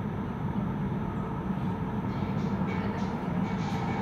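Steady low rumble and hum of an underground metro station platform, with a few faint short ticks in the second half.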